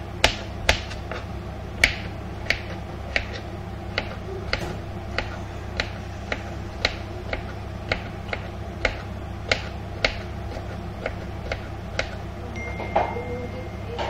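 Onions frying in hot oil in a wok, the oil crackling with sharp pops about twice a second, slightly uneven, over a steady low hum.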